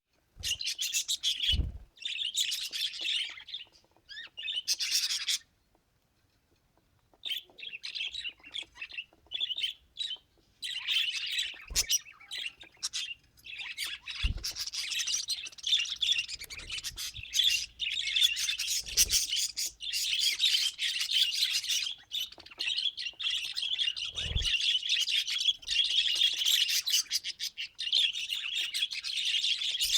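Budgerigars chattering and warbling in a fast, continuous stream of chirps and clicks, with a pause of about two seconds around five seconds in. A few brief low thumps are heard.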